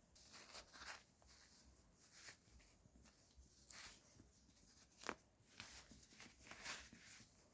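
Near silence with faint rustling and handling noises, and a sharp click about five seconds in.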